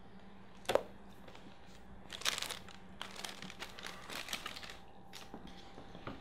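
A sharp knock about a second in, then a few seconds of irregular rustling and crinkling of bedding as someone shifts in bed, over a faint steady hum.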